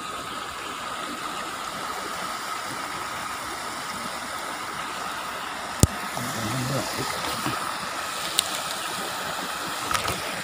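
Steady outdoor background noise with a faint constant hum, and one sharp click about six seconds in, with a smaller click a couple of seconds later.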